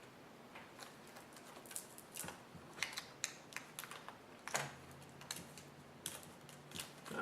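Faint, irregular small clicks and taps of a laptop LCD panel and its display ribbon cable being handled and plugged back in.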